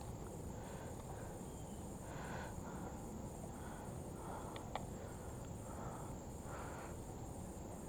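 Insects chirping steadily, with one faint click about five seconds in.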